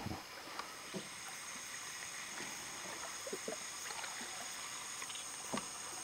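Quiet Amazon rainforest ambience: a steady high-pitched insect drone, with scattered soft knocks and small water sounds.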